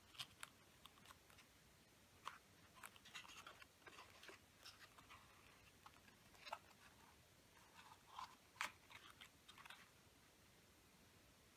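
Faint crinkling and crackling of folded origami paper handled in the hands, in scattered small clusters of crackles and light taps.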